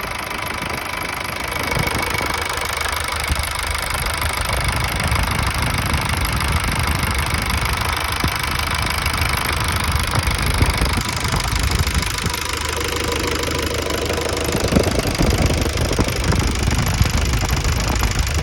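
A Ford Transit Mk4's 2.5-litre naturally aspirated diesel idling, with its diesel clatter under a steady high whistle and rustle. The owner suspects the whistle comes from the alternator side and finds it worst at idle, above all when the engine is cold.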